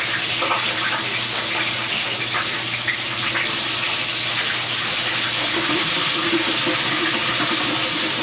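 Steak fries sizzling and bubbling hard in the hot oil of a deep fryer, just dropped in; a steady, loud hiss.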